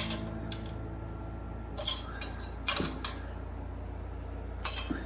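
Small metal engine parts clicking and clinking as rocker studs and pushrod guides are handled and fitted on a big-block Chevy's cylinder heads: a handful of short, sharp clicks spread through, over a steady low hum.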